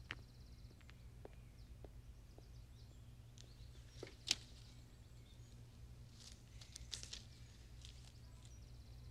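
Near silence: faint room tone with a low hum and a few soft taps and clicks, the sharpest about four seconds in.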